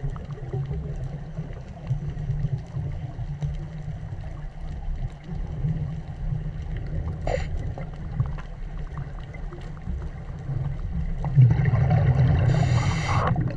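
Underwater sound on a coral reef: a steady low rumble of water against the camera housing, with faint scattered clicks. Near the end comes a louder rushing hiss with bubbling lasting about two seconds, typical of a scuba diver breathing through a regulator.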